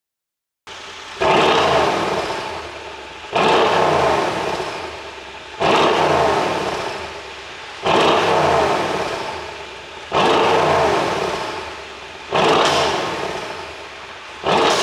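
Mercedes-AMG S63 coupe's twin-turbo 5.5-litre V8 blipped hard about every two seconds, seven times, each rev falling away afterwards. The fall-offs carry the exhaust pops and crackles of a pop-and-crackle ECU tune.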